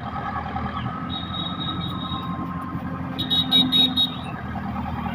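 JCB 3DX backhoe loader's diesel engine running steadily under load, with a high-pitched squeal about a second in and a louder, choppy high squeal near the middle.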